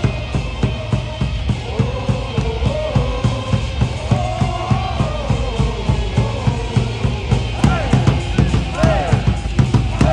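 Baseball batter cheer song: a steady drum beat with voices singing or chanting along to it.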